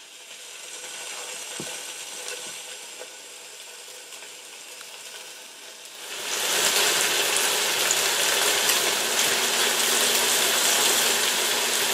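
Oil-coated albacore tuna steaks sizzling in a hot nonstick pan, a steady frying hiss that turns much louder about six seconds in.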